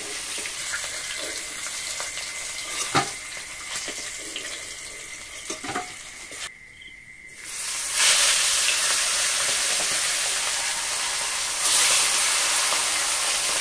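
Hilsa fish pieces frying in hot mustard oil in a steel wok, sizzling steadily, with a few clinks of a metal spatula against the wok and plate. A little past halfway, after a brief quieter moment, the sizzling becomes much louder and stays loud, rising again near the end.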